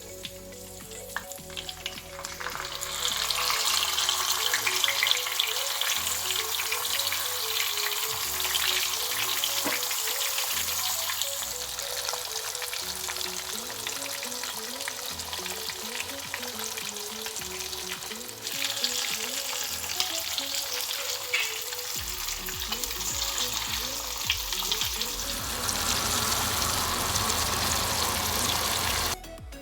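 Marinated tilapia sizzling as it fries in hot oil in a pan. The sizzle swells a few seconds in and cuts off abruptly just before the end.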